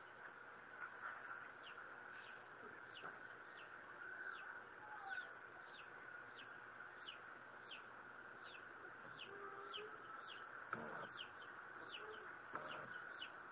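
Faint outdoor ambience: a bird repeating a short, high, falling chirp at an even pace, a little more than once a second, over a steady background hiss, with a couple of brief rustling bursts near the end.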